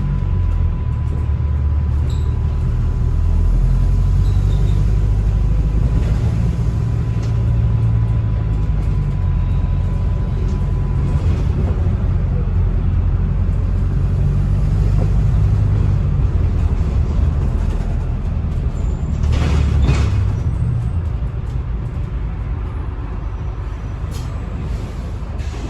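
Inside a Volvo B5LH hybrid double-decker bus on the move: a continuous low rumble from the drivetrain and road, with one short hiss of air about twenty seconds in.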